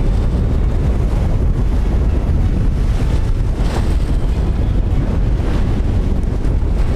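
Strong wind buffeting the microphone in a steady low rumble, with ocean waves washing underneath.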